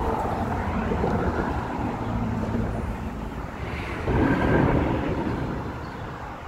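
Low rumble of road traffic on the bridge overhead, swelling about four seconds in, mixed with rubbing and handling noise from the phone held close to the hand.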